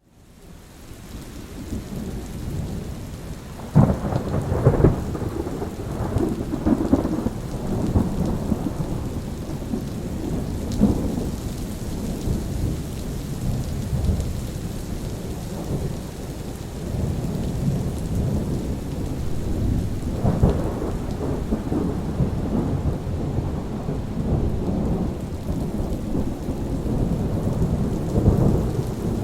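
Steady rain with rolling thunder. The sound fades up from near silence over the first couple of seconds; a sharp crack and rumble of thunder comes about four seconds in, with more rumbles about two-thirds of the way through and near the end.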